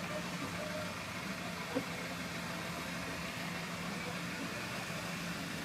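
Engine of an open-air ride vehicle running steadily with a low, even hum and a light noise of movement. One short knock about two seconds in.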